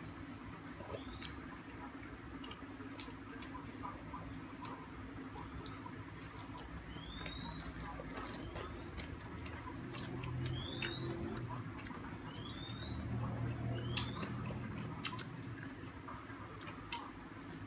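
A person eating from a metal plate: chewing with light clicks and taps, while a high, short rising chirp comes several times at uneven intervals and a low hum swells twice in the middle.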